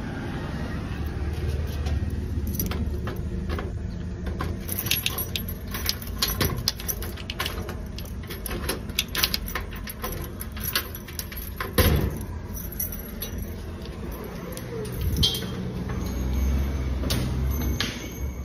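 A bunch of keys jangling, with clicks of a key working a door lock. A single loud knock about twelve seconds in.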